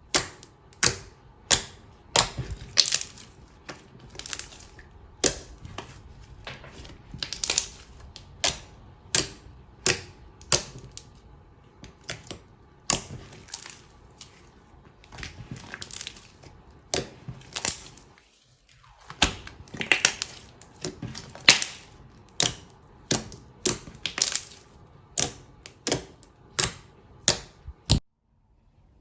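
Slime being squeezed, folded and pressed by hand, giving a string of sharp wet clicks and pops, about one or two a second. The sound cuts out briefly about a second before the end.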